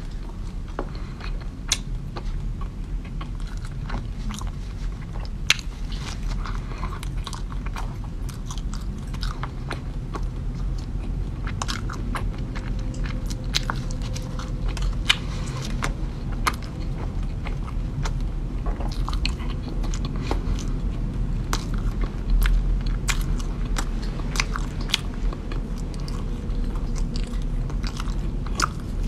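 A person biting and chewing a crumbly green cookie close to the microphone: many short clicks and crunches at an irregular pace, over a steady low hum.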